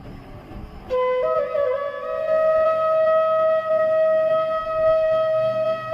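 Flute music: a single long held note that comes in about a second in and steps up a little in pitch just after.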